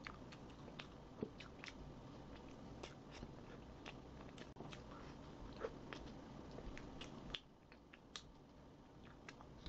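Close-miked chewing of a soft ice cream sandwich with whipped cream: scattered wet, sticky mouth clicks and smacks at an irregular pace, over a faint steady hum that drops away about seven seconds in.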